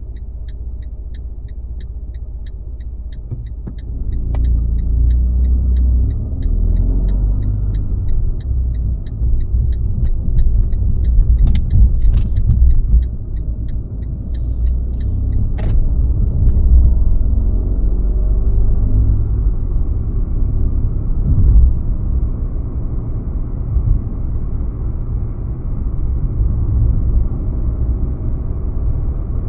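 Car driving, with a low engine and road rumble that grows louder about four seconds in. Over it a turn-signal indicator ticks steadily, about twice a second, until it stops about halfway through.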